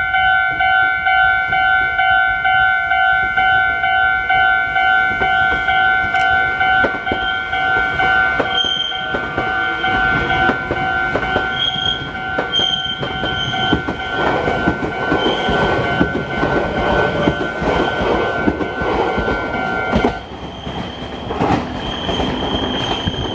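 Railway level-crossing warning bell ringing in a steady pulsing rhythm while a Meitetsu 2000 series μSKY train rolls slowly over the crossing. The train's wheels clatter over the rail joints, with brief high squeals, and grow loud about two-thirds of the way through. The bell stops shortly before the end.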